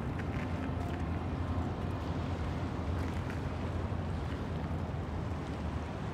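Steady low outdoor rumble of riverside ambience, with a few faint ticks over it.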